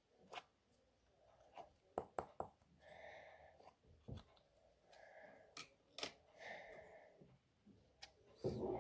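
Hands pressing and stretching homemade slime: repeated soft squishes with scattered sharp pops and clicks.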